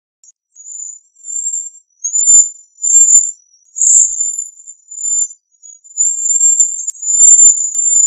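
Cedar waxwing calling: a series of very high, thin, whistled notes, each under a second long, repeated with short gaps and staying at about the same pitch.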